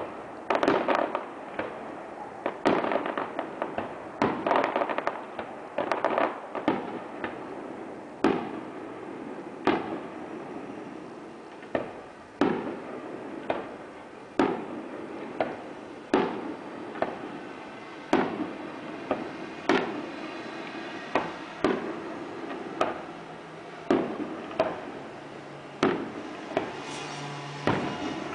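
Aerial firework shells bursting one after another, a sharp bang every second or two, each trailing off before the next.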